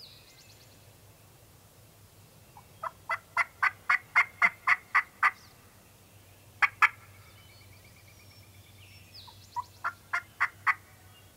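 Turkey yelping: a run of about ten sharp, evenly spaced notes at about four a second, two more a little later, then a run of five near the end. Faint songbird notes and a thin trill sit in the background.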